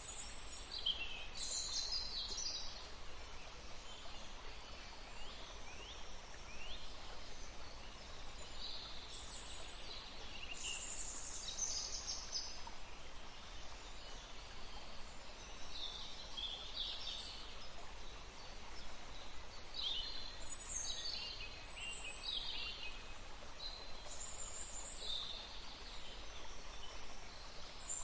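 Songbirds chirping and singing in short, high phrases, one after another, over a steady hiss of running water.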